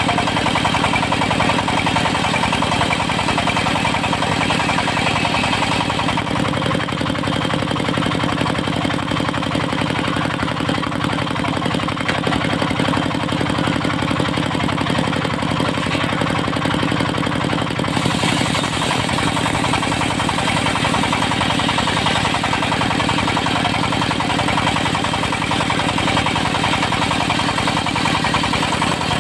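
Diesel engine driving a portable circular sawmill, running steadily at a loud, even level with a fast firing beat; its higher hiss eases off about six seconds in and returns at about eighteen seconds.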